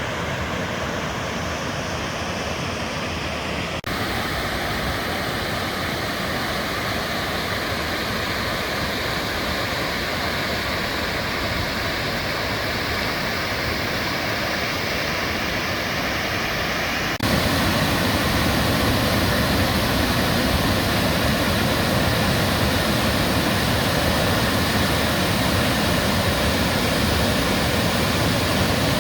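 Steady rushing water of a waterfall, with two abrupt shifts in its sound, the second one past halfway making it louder.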